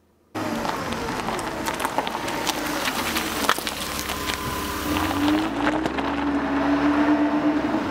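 A car engine running, cutting in suddenly at full level with a clattery, noisy sound and a tone that rises in pitch in the second half, as if revving.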